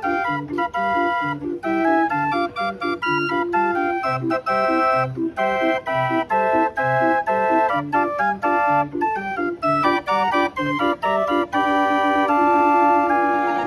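Hand-cranked Stüber 'Violino-Pan' barrel organ playing a tune on its pipes: a melody over a steady oom-pah accompaniment of bass notes alternating with short chords, with a held chord near the end.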